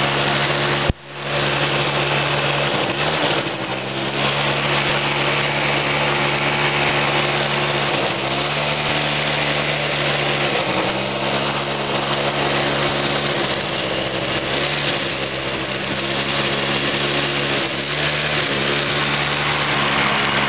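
Quad ATV engine running steadily under way, its pitch dipping and rising again a few times. The sound cuts out briefly about a second in.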